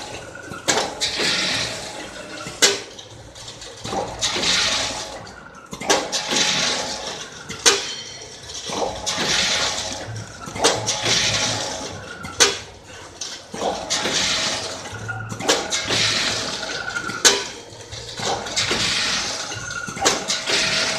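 Automatic vertical sachet packing machine with a weigher running in repeating cycles, roughly every two seconds: a rushing hiss lasting about a second, then sharp mechanical clacks.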